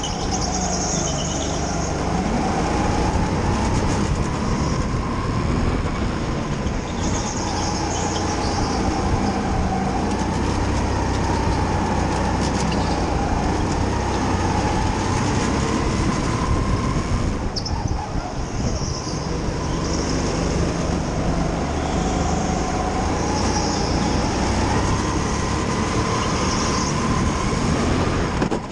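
Go-kart engine running hard through a lap, its pitch rising and falling as it accelerates and slows for the corners, with high squeals from the tyres coming and going.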